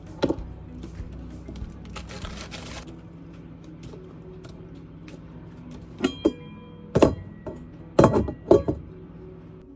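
Background music with kitchenware being handled: a rustle around two seconds in, then a cluster of sharp clinks and knocks in the second half, some of them ringing briefly.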